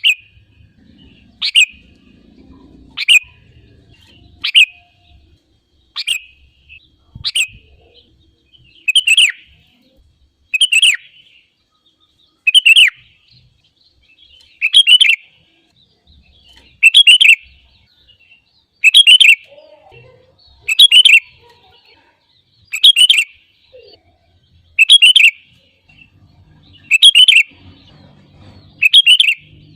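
Sooty-headed bulbul singing: short, loud, bubbly whistled phrases of about half a second, repeated over and over, about every one and a half to two seconds.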